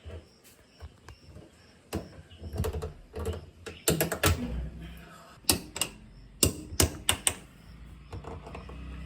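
Irregular sharp clicks and knocks, in quick clusters, from hands working the washing machine's door gasket and retaining ring back into place. A low hum comes in near the end.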